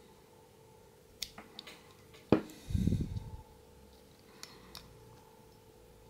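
Leatherman Bond multitool being handled, its fold-out tools swung open and shut by hand: a few light metal clicks, one sharper click about two seconds in, then a brief low thump of handling.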